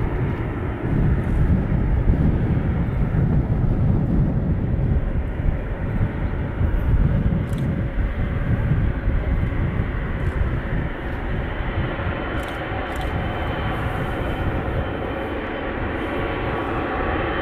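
Jet airliner engines making a deep, steady rumble, with a faint thin whine coming in about twelve seconds in.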